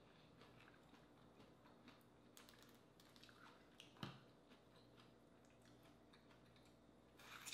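Faint, scattered clicks and crackles of a boiled crawfish shell being cracked and peeled by hand, with a sharper crack about four seconds in and another near the end.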